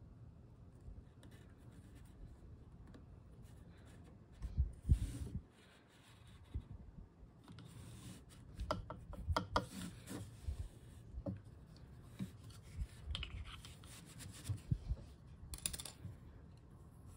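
Hands handling yarn and wood on a wooden inkle loom: fingers rubbing and picking up warp threads, and a wooden stick shuttle with its weft yarn sliding through the shed and tapping the loom. Soft scrapes and ticks, with a few soft thumps about five seconds in and busier rubbing and clicking in the second half.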